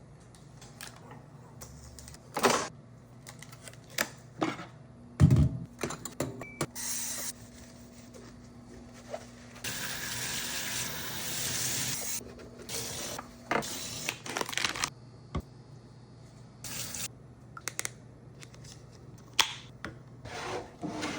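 Parts of a new espresso machine being handled and fitted: scattered plastic and metal clicks, knocks and clatter, with a louder knock about five seconds in and a couple of seconds of hissing noise about ten seconds in, over a faint steady hum.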